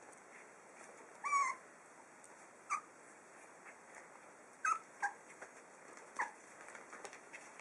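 Five-week-old puppies squealing and yelping while they play-fight: about five short calls, the first about a second in the loudest and longest, wavering in pitch.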